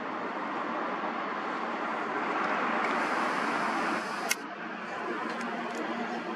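Distant city traffic, a steady rushing noise that swells a few seconds in, with one sharp click a little past the middle.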